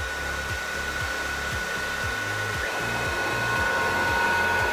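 Steady whir of the CNC router's vacuum hold-down pump running, with a steady high whine over it; a second, lower tone joins about halfway through.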